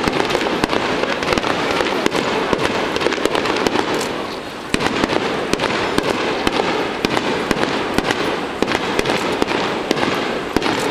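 Fireworks display going off in rapid succession: a continuous barrage of bangs and crackling bursts, with a short lull about four seconds in before the barrage picks up again.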